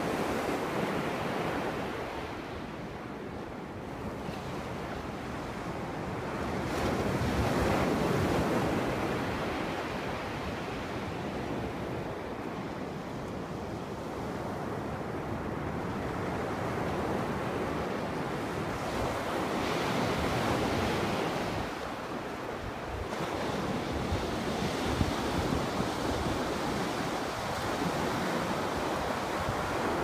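North Sea surf breaking on a sandy beach: a continuous wash of waves that swells louder about eight seconds in and again around twenty seconds, with wind rumbling on the microphone.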